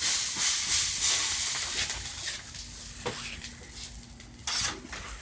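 Sizzling hiss on a hot flat-top griddle as it is cleaned, dying down over a few seconds, with a short burst of hiss again near the end.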